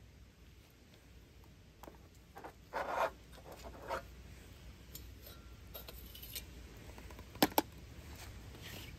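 Handling noises from an aluminium mess tin and a small folding stove being picked up and moved: light metal clinks and knocks, a short scrape about three seconds in, and two sharp clicks close together near the end, the loudest of them.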